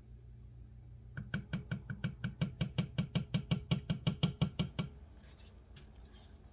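A rapid, even run of about twenty knocks, roughly six a second, starting about a second in and stopping after some three and a half seconds.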